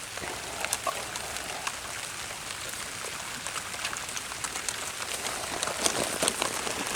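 Light rain pattering: irregular scattered drop ticks over a steady hiss.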